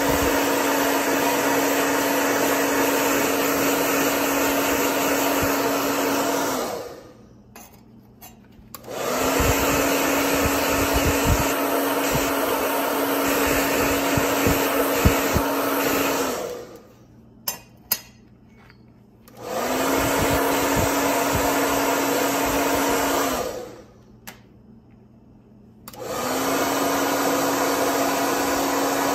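Handheld hair dryer running steadily with a hum, blowing on damp metal parts; it is switched off and back on three times, about a third of the way in, past the middle and near the end, each pause lasting two to three seconds. In the pauses there are a few light clicks from parts being handled.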